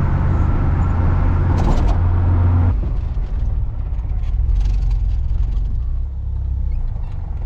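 A car driving: a steady low rumble of engine and road noise, which shifts and drops a little about three seconds in.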